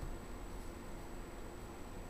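Steady faint hiss with a low hum and a thin high-pitched tone running through it: room tone with no distinct sound events.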